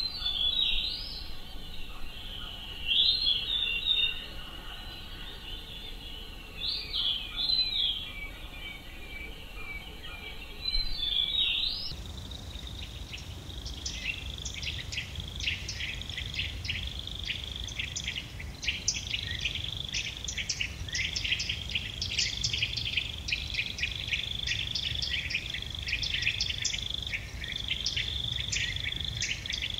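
Birds singing in short repeated high phrases. About twelve seconds in the sound cuts to a dense, steady run of high chirping that continues to the end.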